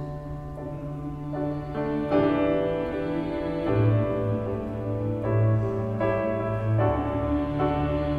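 Grand piano playing a slow instrumental interlude of held chords that change every second or two, over a sustained low bass.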